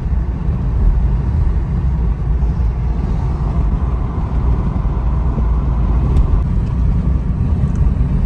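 Steady low rumble of road and engine noise inside a moving vehicle, most likely a car, with no distinct events.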